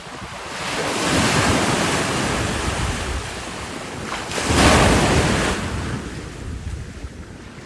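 Ocean surf washing onto the beach in two swells, the second louder, with wind buffeting the microphone.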